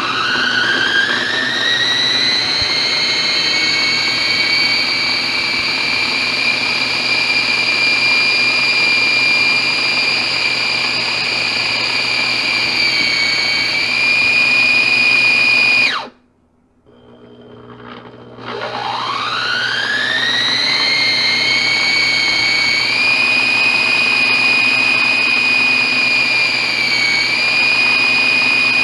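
BEAR baby food maker's built-in blender motor pureeing steamed apple chunks, its automatic blending stage after steaming. A high motor whine climbs in pitch as it spins up, then runs steadily. About sixteen seconds in it cuts out for a couple of seconds, then spins up again and runs on.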